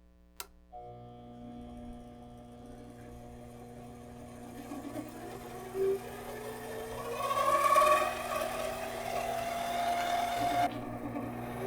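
King Canada 7x12 mini lathe switched on in forward with a click, its motor and headstock humming steadily while a whine rises in pitch as the speed is turned up. The pitch drops abruptly about ten and a half seconds in, then starts climbing again.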